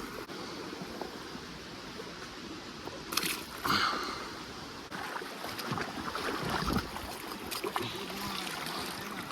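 Water splashing and lapping, with a couple of sharper splashes about three to four seconds in.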